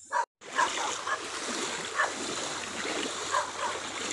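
Water splashing and sloshing as people wade through a shallow stream, with irregular splashes from their steps. The sound cuts out for a moment just after the start.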